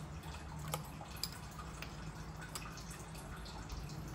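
Faint drips and small splashes of water in an aluminium pot as a metal spoon tips in a white granular ingredient and stirs, with a few soft ticks scattered through, over a low steady hum.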